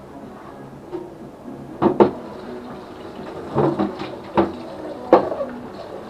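Plastic food container knocking and clattering against a stainless steel sink while being washed by hand: a close pair of sharp knocks about two seconds in, then a few more in the second half, with the tap running in the later part.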